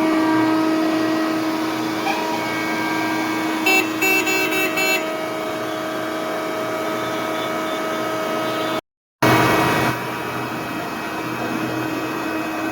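Heavy machinery engine running with a steady drone, with a quick run of short horn toots about four seconds in. The sound cuts out briefly about nine seconds in.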